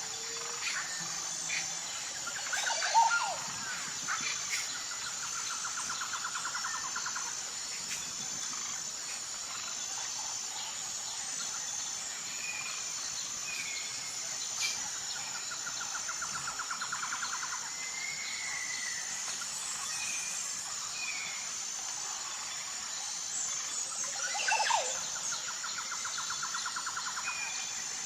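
Forest ambience: a steady high-pitched insect drone with birds calling over it. There are short whistled chirps, a rapid trill of a couple of seconds that comes back three times, and louder sweeping calls about three seconds in and again near the end.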